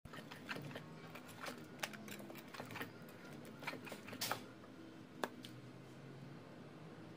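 Wire whisk clicking and scraping against a ceramic mixing bowl as it stirs thick cake batter, in quick irregular clicks that thin out after about four seconds, with one sharp click about five seconds in.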